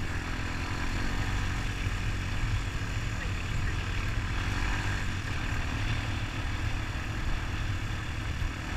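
Honda ATV engine running steadily, a continuous low rumble with an even noise above it.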